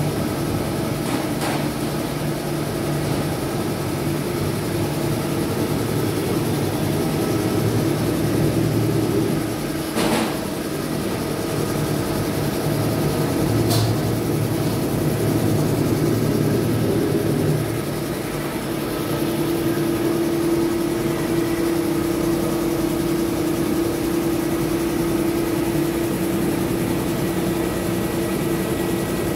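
A 2 HP V-type twin-cylinder, belt-driven air compressor running with a continuous mechanical hum and a couple of brief clicks. Past the middle a steadier, higher hum takes over.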